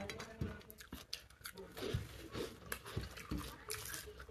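Close-up eating sounds: soft, irregular wet clicks of chewing, and fingers squishing and mixing rice with curry on a plate.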